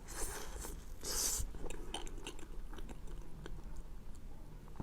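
Close-up chewing of a dessert in the mouth: soft, irregular chewing with small wet mouth clicks and a couple of short louder bites near the start.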